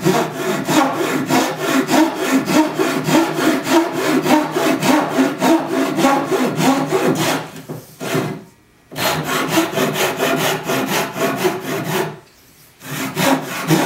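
Japanese pull saw cutting a tenon in Sipo (African mahogany) hardwood, with fast, even rasping strokes. The sawing stops briefly twice, about eight and twelve seconds in, then starts again.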